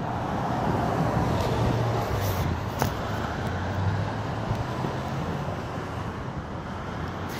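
Steady road traffic noise, a car swelling past early on, with one short click about three seconds in.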